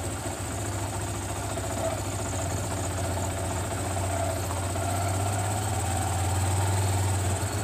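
Motorcycle engine running steadily while riding, getting a little louder toward the end.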